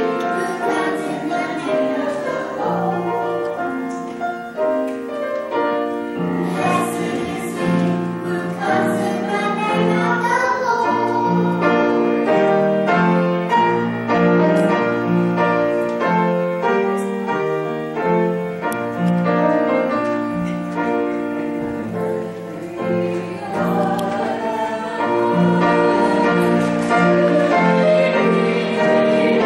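Piano accompaniment with a group of voices singing.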